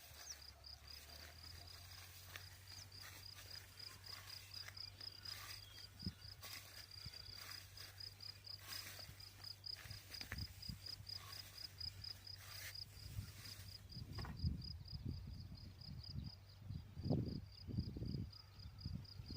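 Cricket chirping in an even, high-pitched pulse, a few chirps a second. From about two-thirds of the way in, low thuds and rustles come in and are the loudest sounds.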